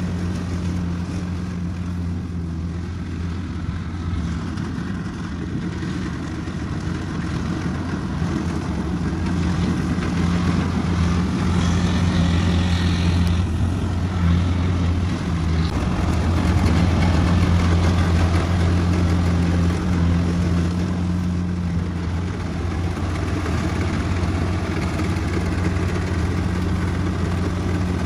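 Kubota rice combine harvester's engine running steadily with a constant hum and the rattle of its cutting and threshing gear while harvesting rice; it grows louder for a stretch in the middle.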